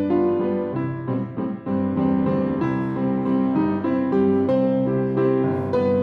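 Upright piano played solo, with held notes and chords overlapping and moving on every half second or so.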